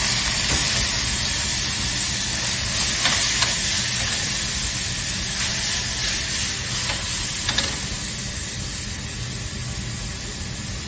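Chopped fresh tomatoes sizzling in hot olive oil in a frying pan, a steady sizzle that eases a little toward the end. A few faint clicks are heard along the way.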